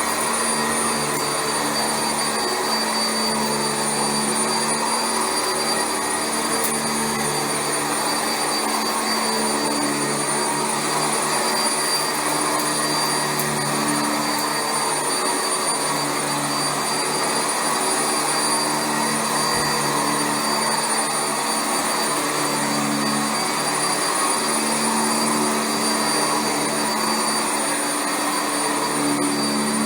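Sanitaire SC679J commercial upright vacuum running over carpet. Its motor keeps up a steady high whine, under which a low hum swells and fades every few seconds as it works.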